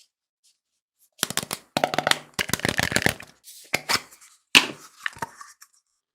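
A frozen mesh stress ball crackling and crunching as it is squeezed by hand, in a quick run of crisp crackles that starts about a second in, with one sharp crack standing out a little past the middle.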